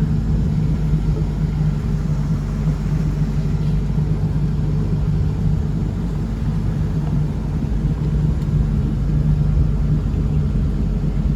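Boat engine running steadily under way, a constant low drone with rushing wind and water noise over it.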